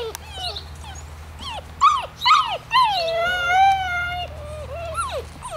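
Six-week-old Slovakian Rough-haired Pointer puppies whining and yelping: short high rising-and-falling yelps, then one longer drawn-out whine about three seconds in, and a few more yelps near the end.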